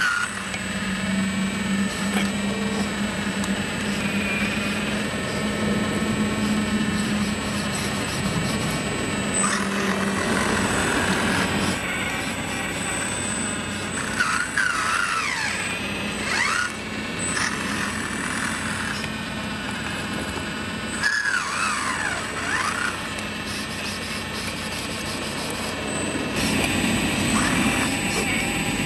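JD360 scale RC hydraulic excavator digging dirt: its hydraulic pump hums steadily, with whining squeals that bend up and down twice past the middle as the valves work the boom and bucket.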